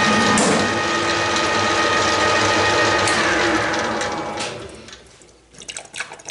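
Metal lathe running with a steady gear whine; about three seconds in the spindle is switched off and the whine falls in pitch and fades as the chuck coasts to a stop. A few light metallic clicks follow near the end.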